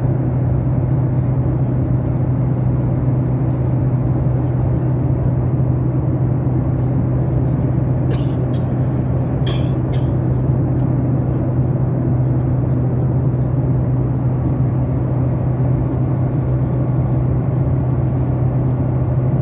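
Steady airliner cabin noise: a constant low drone of engines and air, with a couple of short clicks about eight and ten seconds in.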